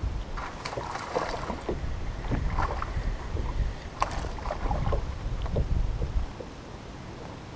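Water lapping and slapping against the hull of a bass boat, with wind buffeting the microphone and small clicks and knocks; it dies down about six seconds in.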